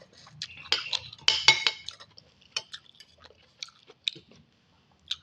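Cutlery clinking and scraping against a bowl of instant noodle soup, with a dense cluster of clinks about a second in, then scattered small clicks.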